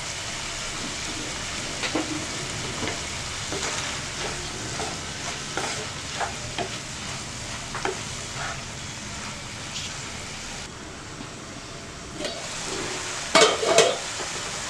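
Cauliflower and minced chicken sizzling in a frying pan while a wooden spatula stirs it, with many short scrapes and clicks of the spatula against the pan. A louder clatter comes near the end.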